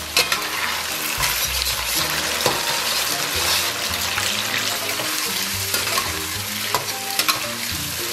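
Chilli paste and broad-bean paste sizzling in hot oil in a wok with scallion, ginger and garlic, stir-fried until the oil turns red. A metal spatula scrapes and taps against the pan now and then.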